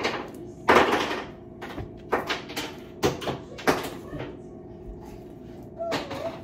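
Kitchen clatter: about eight sharp, irregular knocks and clicks in the first four seconds over a steady low hum, the loudest a clatter just under a second in. A small child's brief vocal sound comes near the end.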